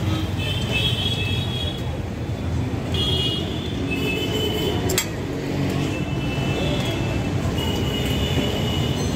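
Steady low rumble of passing road traffic, with several high tones of about a second each over it and one sharp click about five seconds in.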